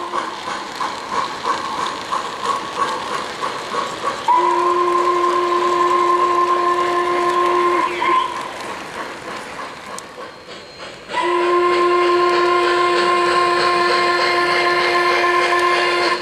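O-gauge model train cars clicking along three-rail track, then a model steam locomotive's sound system blowing a long, steady chord whistle twice, about four seconds in and again about eleven seconds in.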